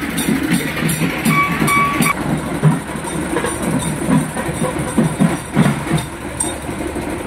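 Loud, distorted, bass-heavy din of a street procession, blaring from horn loudspeakers on a truck close by. A thin steady tone sounds briefly about two seconds in.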